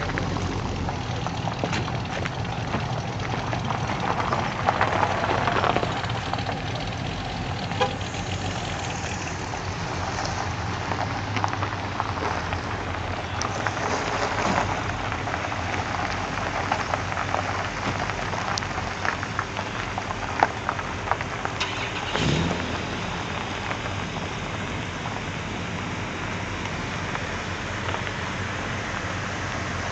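Holden cars, Commodores and a Monaro coupe, driving slowly past one after another on a gravel drive: engines running at low revs over a steady crunch and crackle of tyres on gravel. One engine revs briefly about two thirds of the way through.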